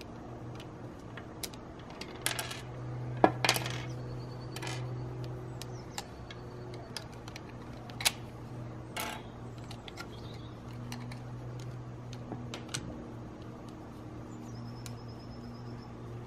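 Circa-1971 Plastic Meccano parts clicking and knocking as they are handled and fitted together, with a few sharper knocks about 3 and 8 seconds in, over a steady low hum.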